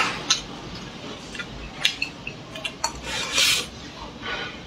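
Wooden chopsticks clicking against a ceramic bowl a few times, then a short slurp of food drawn into the mouth about three seconds in.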